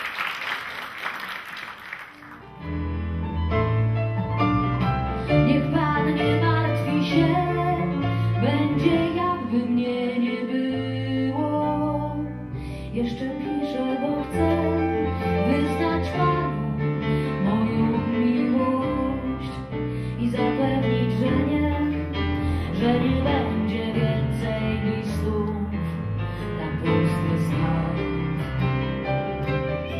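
Audience applause for about two seconds, then live music starts: a woman singing a song to instrumental accompaniment.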